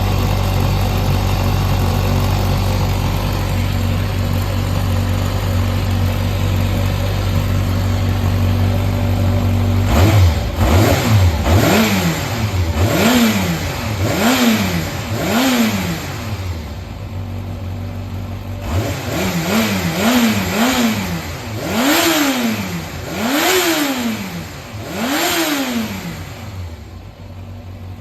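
Yamaha XJR400 air-cooled inline-four engine idling steadily, then blipped on the throttle about a third of the way in: four quick revs, a short idle, three quicker revs, then three higher revs before it drops back to idle. It runs cleanly, with no abnormal noise according to the seller.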